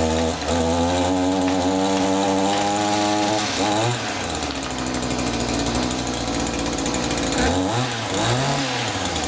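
A small motor running steadily with a buzzing, evenly pitched tone, which dips and swoops in pitch briefly about four seconds in and again around eight seconds.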